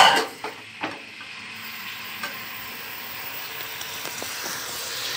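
Mutton sizzling as it is browned in hot oil and fried onions in an aluminium pressure cooker. A metal spoon scrapes and knocks against the pot a couple of times in the first second as it is stirred, then the sizzle runs on steadily.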